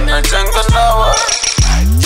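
Hip hop song with a heavy bass line and a rapped vocal, and a rising bass slide near the end.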